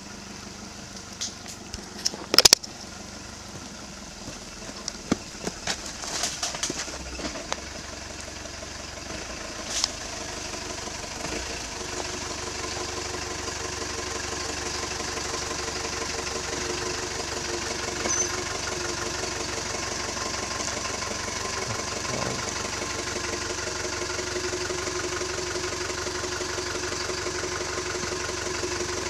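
Toyota Bandeirante 4x4 engine running at low revs, slowly growing louder as the truck crawls closer over rough trail ground. Sharp clicks and knocks come and go in the first ten seconds or so.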